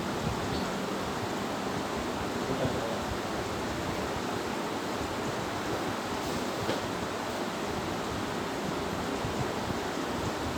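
Steady, even hiss of background noise with no speech, holding one level throughout.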